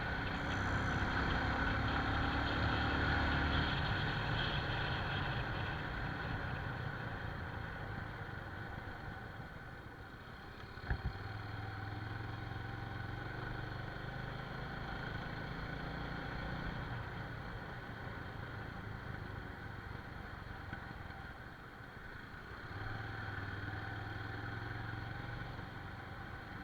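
Motorcycle engine running under way, its note swelling and easing as the throttle changes, with one short knock a little before halfway through.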